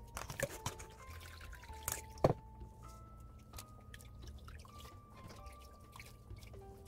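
Soaked barley malt and its water poured into a stainless steel mesh strainer, the liquid dripping and trickling through into the pot below. A few sharp knocks come in the first couple of seconds, the loudest about two seconds in, over soft background music with slow held notes.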